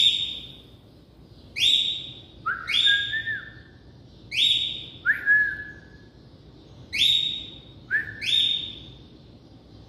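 Pet bird giving loud, repeated whistled calls, about one a second, each sliding quickly up and then held briefly; a few calls sit on a lower note.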